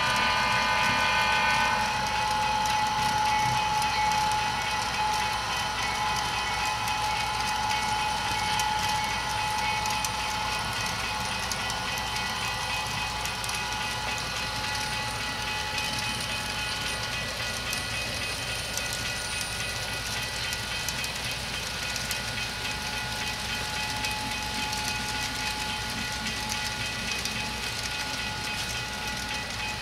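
HO-scale model freight train running past. A multi-note horn sounds for about the first two seconds and cuts off, then a steady tone continues. The cars' wheels click over the track joints as the long train rolls by.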